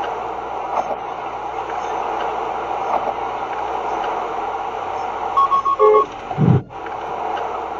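Steady road and tyre noise of a car at freeway speed, heard from inside the cabin. About five and a half seconds in comes a quick run of short, high beeps, a car's collision-warning chime as another vehicle cuts in close, followed by a brief low thump.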